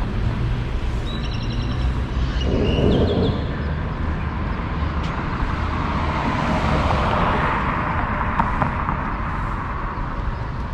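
Street traffic: a steady low rumble of vehicles, with one vehicle passing close by, swelling and then fading in the middle. A few short high squeaks sound about a second or two in.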